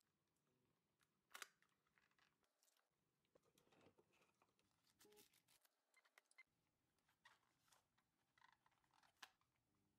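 Near silence with faint scattered clicks and rustles of a cardboard watch box and its cushion insert being handled, the sharpest click about a second and a half in and another near the end.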